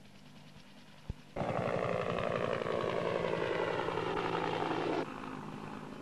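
Helicopter flying past, a fast rotor beat with its pitch slowly falling as it goes by. It starts suddenly about a second and a half in and cuts off abruptly about five seconds in, with a faint low hum before and after.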